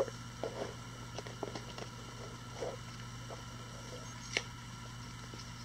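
Faint rustling and light clicks from small items being handled, with one sharper click a little past four seconds in, over a steady low hum.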